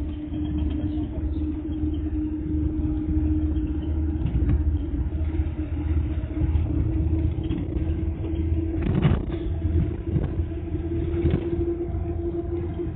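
Minibus running along the road, heard from inside the passenger cabin: a steady low engine and road rumble with a constant hum that rises slightly near the end. A short clatter comes about nine seconds in, with a couple of fainter ones after it.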